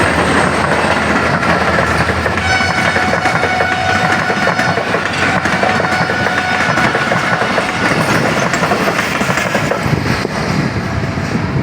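Passenger coaches of a train rolling past at speed, wheels clattering over the rail joints. From about two seconds in until about eight seconds in, a steady high-pitched ringing tone sounds over the clatter.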